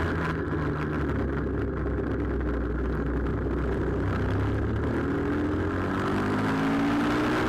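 Pit bike's single-cylinder engine heard from onboard, holding steady revs through a corner, then climbing in pitch over the last few seconds as the throttle opens.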